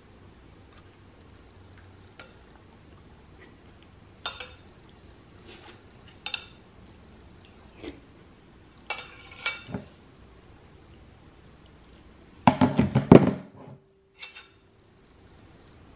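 Metal spoon clinking and scraping against a glass bowl of cream of rice as it is eaten: scattered light taps, then a quick run of louder clinks about twelve and a half seconds in.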